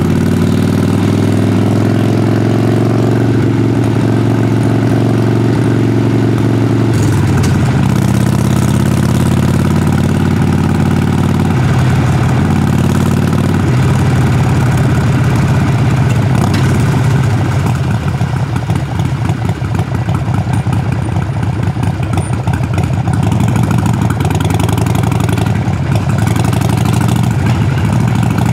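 Harley-Davidson Sportster Forty-Eight's air-cooled 1200 cc V-twin running loud through its exhaust while riding. The pitch climbs and drops several times in the first half as the throttle opens and closes and gears change, then turns rougher and more uneven from a little past the middle.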